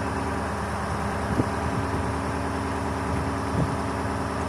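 KamAZ truck diesel engine idling steadily, with two faint knocks, one about a second and a half in and one near the end.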